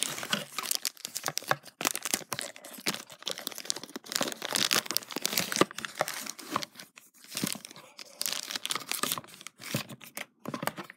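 Plastic packaging crinkling and tearing as it is pulled open by hand, in irregular crackles with a few short pauses.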